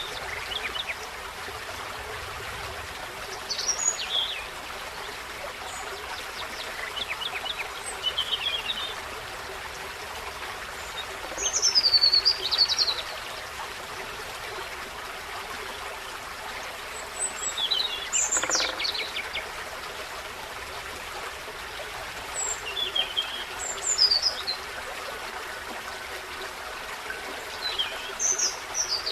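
Small songbirds singing short, high, warbling phrases every few seconds over the steady rush of a forest stream.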